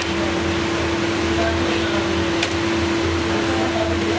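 Steady machine hum in a bakery: a fan-like rush with one constant droning tone, and a faint click about two and a half seconds in.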